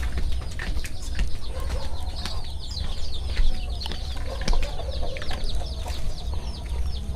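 Chickens in a farmyard: a rapid run of short, high, falling peeps with some low clucking, over a steady low rumble.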